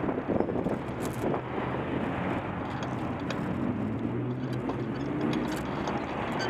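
Slow city traffic heard from a bicycle: car engines running close by, with an engine drone that swells in the middle, and a few sharp clicks about a second in.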